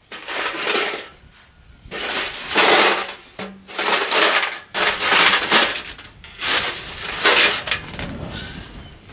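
Heavy steel livestock panels being shifted and set into place: about five bursts of metal rattling and scraping, a second or less each.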